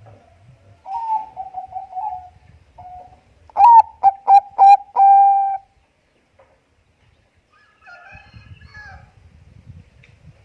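Zebra dove (Bangkok perkutut) singing. A run of quick, fairly quiet coos comes about a second in. It is followed by a louder phrase of clipped, stuttering coos that ends in one long held coo. Faint higher chirps are heard near the end.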